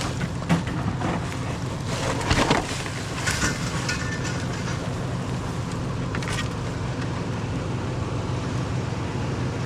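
A vehicle engine idling steadily, with a few short clattering and rustling noises of things being handled, the loudest about two seconds in.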